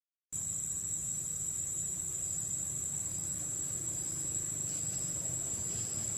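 Steady, high-pitched drone of insects, one unbroken tone with no pauses, over a low rumble; the sound drops out for a moment right at the start.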